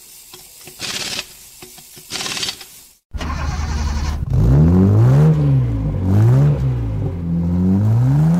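Two whooshes, then about three seconds in a car engine starts abruptly and revs up and down about three times, loud.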